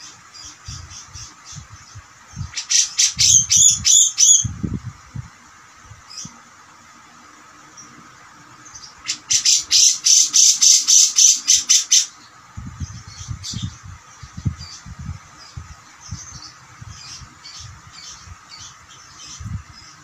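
Grey-cheeked bulbul (cucak jenggot) calling in its harsh, chattering song: two loud bursts of rapid repeated notes, about a couple of seconds and then about three seconds in, with softer scattered calls between.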